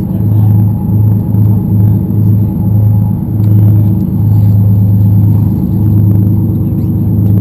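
Party fishing boat's engine running with a steady low drone that wavers slightly.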